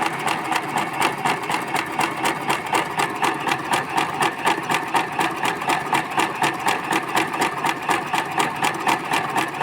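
Small portable electric sewing machine stitching steadily, its needle going in fast, even strokes of about four or five a second. It is sewing a row of gathering stitch for ruffles, at stitch length 3 and tension 6 with the bobbin turned the reverse way.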